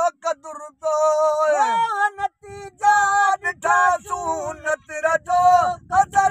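A man singing a Sindhi molood, a devotional song, in long held notes that waver and bend in pitch, broken by short pauses between phrases.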